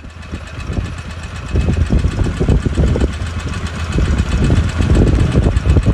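Strong storm wind buffeting a phone's microphone: an irregular, gusting low rumble that grows louder after about a second and a half.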